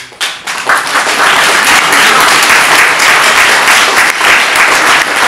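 Audience applauding: the clapping breaks out suddenly, swells within the first second, then stays dense and steady.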